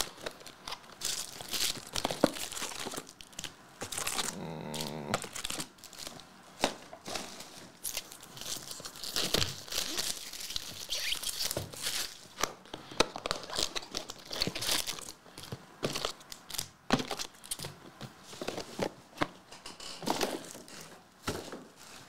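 Trading-card boxes and foil packs being handled and torn open by hand: irregular crinkling, crackling and ripping of wrapper and packaging.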